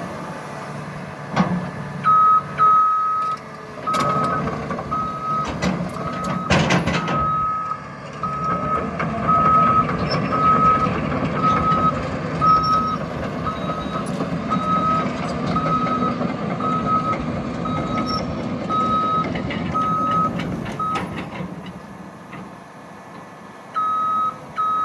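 Caterpillar 323F L excavator's diesel engine running under load with its travel alarm beeping about once a second, the sign that the machine is tracking. The beeping pauses briefly near the end, then resumes. A few loud knocks and clanks come in the first seven seconds.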